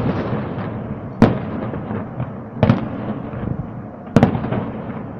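Aerial firework shells bursting in a display: a sharp bang about every second and a half, with a rolling rumble carrying on between the bangs.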